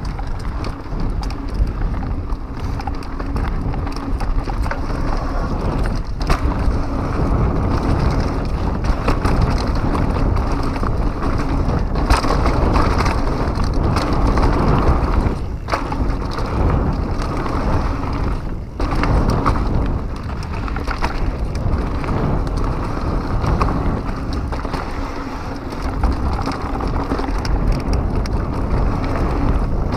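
Pivot Mach 6 full-suspension mountain bike descending a rough dirt trail at speed: tyres rushing over the dirt, wind buffeting the microphone, and a few sharp knocks and rattles from the bike hitting bumps.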